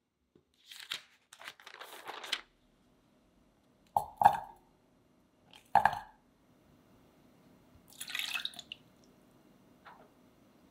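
Parchment paper rustling, then ingredients going into a white enamel saucepan: sharp knocks with a short ring as butter and a silicone spatula hit the pan about four and six seconds in, and a short pour of liquid into the pan near the end.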